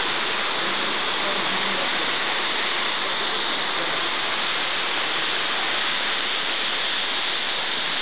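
Waterfall rushing steadily down a rock gorge: an even, unbroken rush of falling water.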